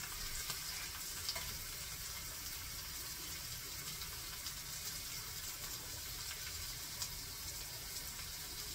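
Food frying in a skillet on the stove, a low, steady sizzle.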